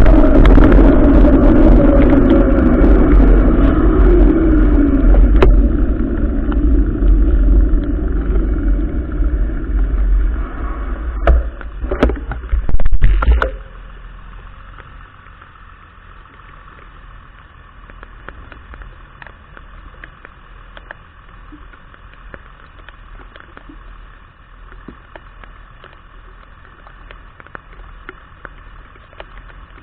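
Vehicle driving in the rain, its engine note falling as it slows, with a few knocks before it suddenly cuts off about 13 seconds in. After that only a faint steady hiss remains.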